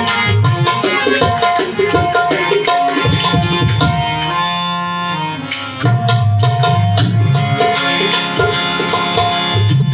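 Indian devotional music: a harmonium playing sustained reedy notes over a fast, steady beat on Indian hand drums. The drumming thins out briefly about halfway through, then picks up again.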